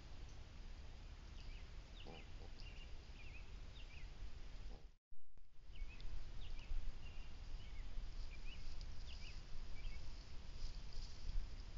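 Small birds chirping with short, quick-gliding notes over a steady low rumble of wind. There is a short low call about two seconds in, and the sound cuts out completely for a moment just after five seconds.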